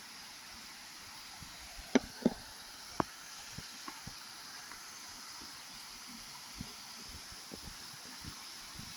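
Three sharp knocks, two close together about two seconds in and a third a second later, followed by a few faint clicks, over a steady hiss.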